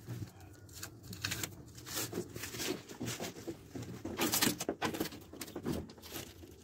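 Irregular knocks, clicks and rustling, loudest a little past four seconds in.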